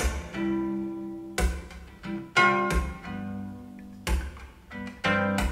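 Instrumental passage of an indie-folk song between vocal lines: plucked and strummed guitar with held notes and a handful of low drum hits.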